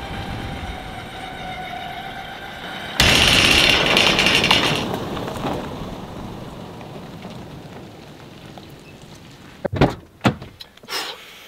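Pickup truck approaching and driving past close by, its tyres loud on gravel as it passes about three seconds in, then fading away. Near the end, a few sharp clicks and knocks of a truck door being opened.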